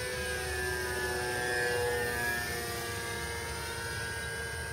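Motor and propeller of a scratch-built RC plane whining as it flies past, swelling to its loudest about two seconds in and falling a little in pitch as it goes by.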